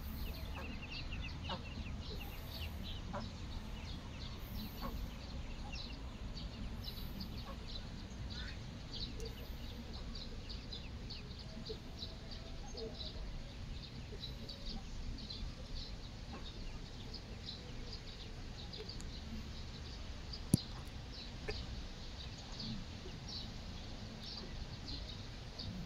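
Ducklings peeping: many short, high calls throughout over a low steady rumble, with one sharp click about twenty seconds in.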